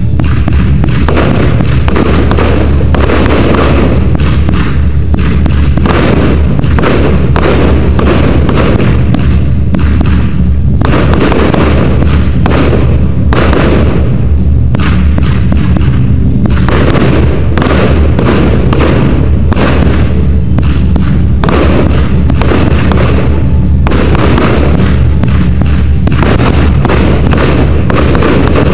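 Aerial fireworks bursting in rapid succession: a continuous run of loud thuds and crackles over a heavy, steady low rumble.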